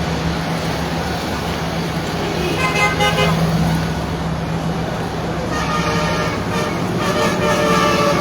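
Road traffic running steadily, with vehicle horns sounding three times, each toot lasting about a second.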